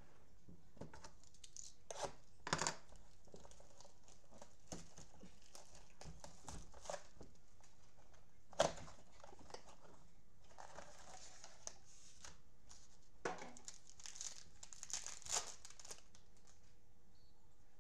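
Plastic wrapping crinkling and tearing as gloved hands open a Panini Prizm football blaster box and its card packs, with scattered sharp clicks and snaps; the loudest snap comes about eight and a half seconds in.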